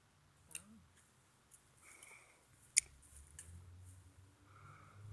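A few sharp clicks and taps, the loudest near three seconds in, over a faint low hum.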